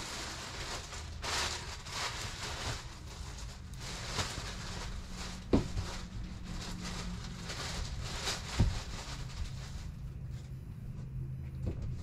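Murphy bed being folded down from the wall: the plastic wrapping on the mattress rustling in several short rushes, with two sharp knocks from the bed frame, one about halfway through and another about three seconds later.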